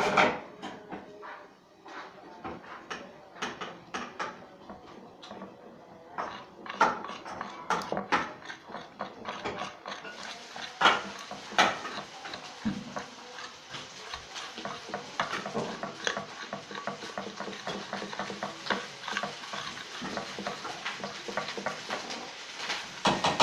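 A spoon stirring clear glue and water in a container: repeated scrapes and clicks of the spoon against the container, becoming busier and more continuous about ten seconds in.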